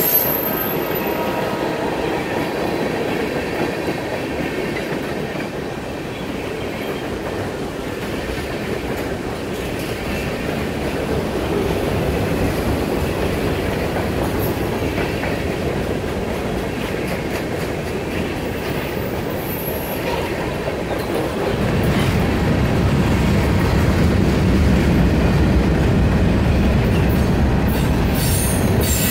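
Freight train's tank cars and covered hopper cars rolling past, their steel wheels making a steady rumble on the rails. The rumble grows deeper and a little louder about three-quarters of the way through.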